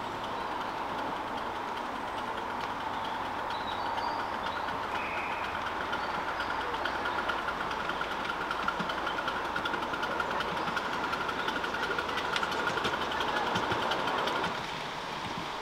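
Ride-on miniature railway train running along the track, growing louder as it approaches. It gives a steady running tone with a fast run of clicks, then drops off suddenly near the end.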